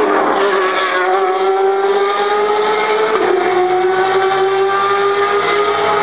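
Race car engine accelerating hard, its pitch climbing steadily through each gear, with a sharp drop at an upshift about three seconds in and another near the end.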